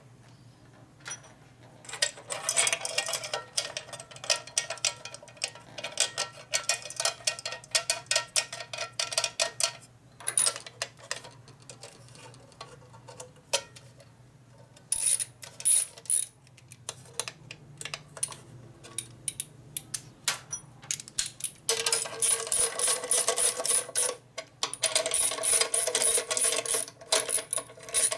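Metal being filed by hand: three bursts of rapid scraping strokes with a ringing metallic tone, separated by short pauses.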